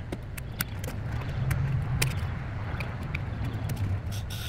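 Chrome trim around a car's back window being pulled free of its clips by hand, giving scattered light clicks and taps over a low steady hum.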